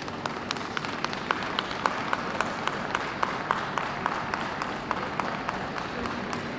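Audience applauding, with clapping in a steady rhythm of about four claps a second.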